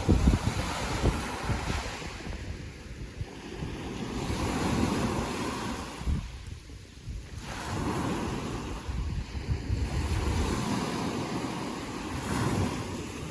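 Ocean waves surging and washing in and out, with wind buffeting the microphone.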